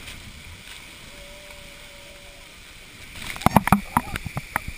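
Steady rushing of a tall waterfall pouring into its plunge pool. About three seconds in, a quick run of sharp knocks and taps right at the microphone, the loudest sound here.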